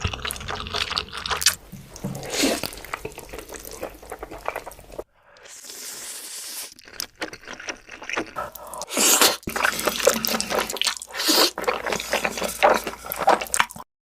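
Close-miked eating sounds: wet chewing and slurping with some crunching, in short clips cut together, with an abrupt break about five seconds in.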